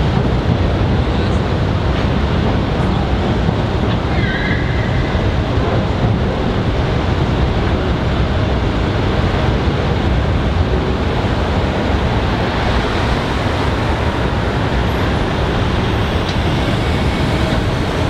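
Steady rumble of a long freight train's wagons rolling over a steel rail viaduct, mixed with city road traffic.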